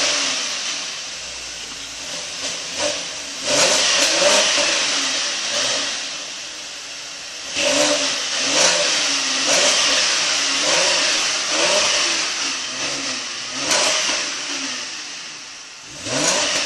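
2010 Chevrolet Camaro engine revved again and again through its exhaust, heard from behind the car: about five or six rises in pitch and level, each falling back toward idle, with a strong rushing hiss on each rev.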